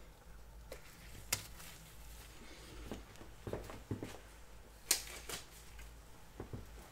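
Gloves being pulled off and put on by hand: scattered light rustles and clicks, with a sharper snap about five seconds in.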